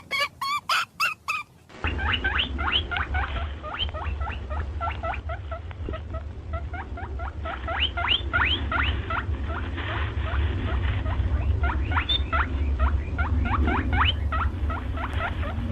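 A small animal or several squeaking: many short, high, upward-sweeping squeaks in quick succession over a low hum. In the first second or two, a different run of short, evenly repeated high calls comes just before it.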